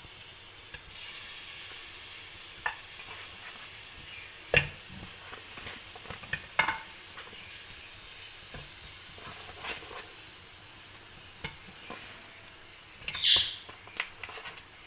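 Pieces of raw mutton dropped one at a time into an aluminium pressure cooker, giving scattered knocks against the pot and a louder clatter near the end, over a steady background hiss.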